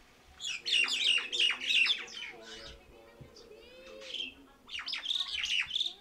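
Javan mynas calling: two loud bouts of rapid, harsh chattering, with a quieter run of whistled notes between them.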